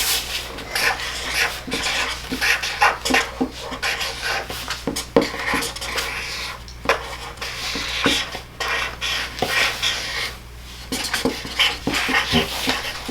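A dog lapping water, a quick, irregular run of wet tongue slaps and splashes.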